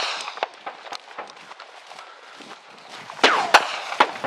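Running footsteps and rustling through tall grass with the handheld camera jolting, then a cluster of loud sharp cracks a little after three seconds in.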